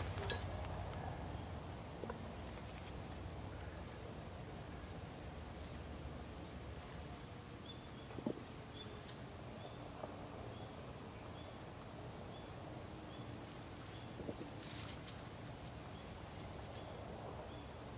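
Faint evening outdoor ambience with a low steady hum and short high chirps repeating about once a second in the second half. A few soft snaps and rustles come as cherry tomatoes are picked off the plants.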